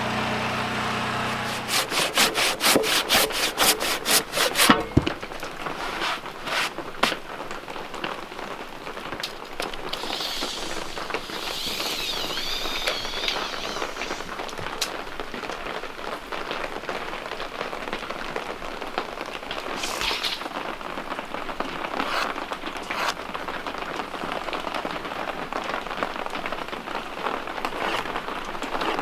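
Steady rain falling on a surface. Near the start, a quick, even run of sharp scraping strokes, like wood being worked, cuts across the rain for a few seconds, and later a wavering high tone comes and goes.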